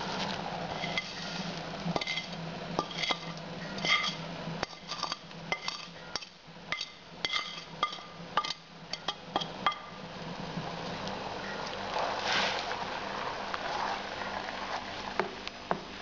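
A wooden spoon knocking and scraping grated apple off a plastic cutting board into a pot: a string of light clinks and taps for the first ten seconds or so. Then the soup is stirred in the pot, a steadier sloshing with a few clinks.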